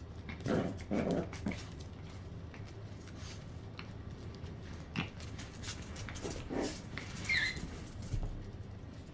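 Puppies and adult dogs play-fighting: short growls and yips, with a short, high, falling yelp about seven seconds in.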